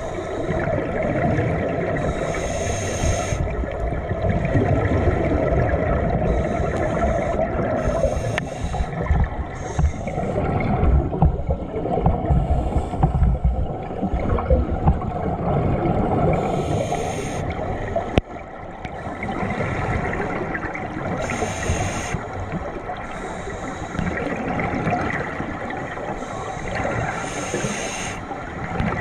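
Scuba diver's regulator breathing heard underwater: a short hiss of inhalation roughly every five seconds, between stretches of low rumbling, gurgling exhaled bubbles.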